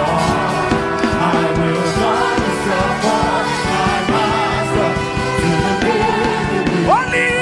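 Gospel worship music: singing over sustained keyboard chords and a steady drum beat, with a voice sliding sharply upward near the end.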